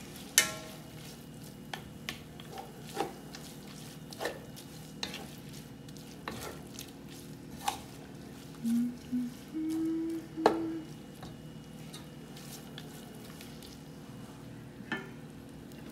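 Wooden spoon stirring shredded chicken frying in a ceramic-coated pan: a soft sizzle with occasional sharp knocks of the spoon against the pan.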